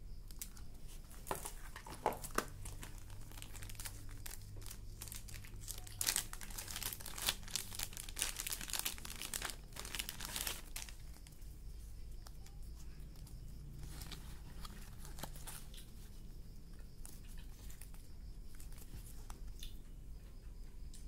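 Packaging crinkling and rustling as it is handled, with a dense run of crackles about six to eleven seconds in and a few scattered ones before and after.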